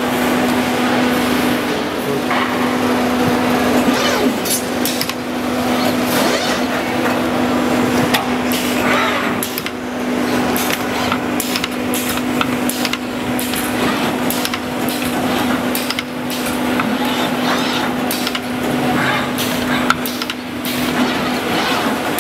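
Robotic tube-bending cell at work: frequent sharp clicks and clanks from the bending head and clamps over a steady hum, with voices in the background.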